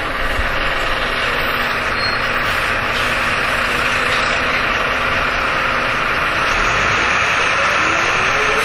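Jelcz M121M city bus's diesel engine running steadily, heard from inside the bus, with a rising whine near the end.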